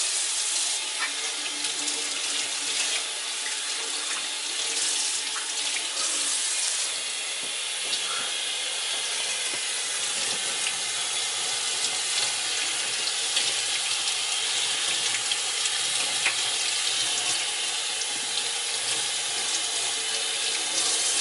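Kitchen tap running steadily into a stainless steel sink, the water splashing over a head of hair being rinsed under it.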